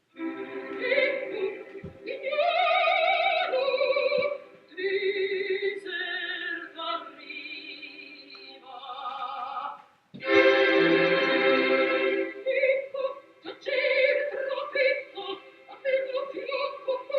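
Operatic-style singing: held notes with vibrato in several phrases, breaking off briefly about ten seconds in.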